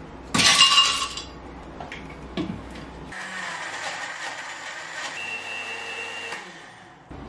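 Countertop blender running steadily, blending muskmelon and apple pieces with ice, from about three seconds in until it winds down near the end. A short loud burst comes about half a second in.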